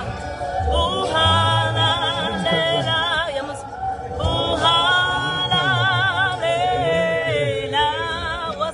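A woman singing a Sesotho Zion church gospel song over a recorded a cappella choir, holding notes with wide vibrato.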